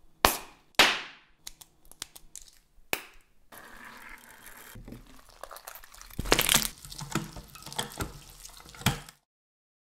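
Slime being handled in a quick run of cuts: two sharp crackling snaps in the first second, a patter of small clicks, then steady wet crackling and crunching as slime full of beads is mixed and pushed through a hand-cranked meat grinder. The loudest crunches come around six and a half and nine seconds, and the sound cuts off suddenly just after nine seconds.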